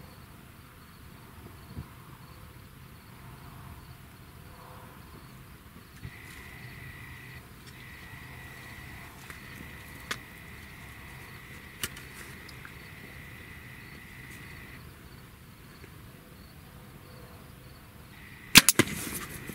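A quiet wait with a faint steady insect buzz and a few small ticks, then near the end a compound bow is shot: a sharp snap as the string is released, followed a split second later by a second crack as the arrow strikes the pronghorn buck.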